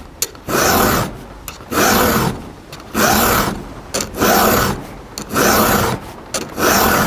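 A round chainsaw file pushed by hand across a dull chain cutter tooth, in about seven rasping strokes roughly one a second. The file chatters on the tooth, a sign that the tooth is dull.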